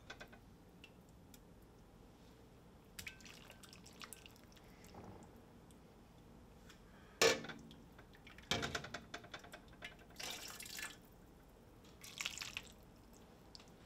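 Soup being scooped from a stockpot with a small ceramic bowl and poured into a serving bowl: liquid splashing and dripping in several short bursts, with one sharp knock of the bowl about seven seconds in.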